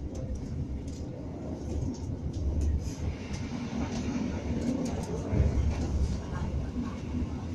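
A person snoring, with two deep, drawn-out snores swelling about two and five seconds in, over a steady low rumble.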